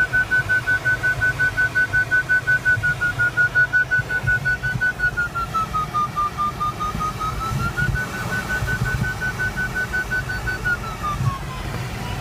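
Glider variometer audio beeping rapidly at a high pitch, the sign of a strong climb in a thermal. The pitch dips a little twice, around the middle and near the end, as the lift weakens. Under it is a steady low rush of airflow around the cockpit.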